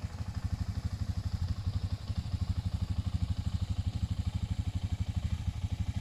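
2001 BMW F650GS's 652 cc single-cylinder four-stroke engine idling, a steady, even beat of exhaust pulses.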